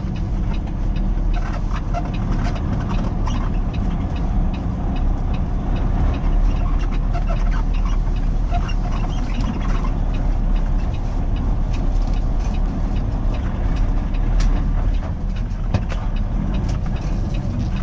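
Peterbilt 389 semi-truck's diesel engine running as the truck creeps along, heard from inside the cab. Short knocks and rattles come through as it rolls over a rough dirt lot.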